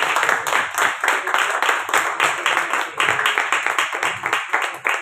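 Audience applauding: steady, dense hand clapping that carries on throughout.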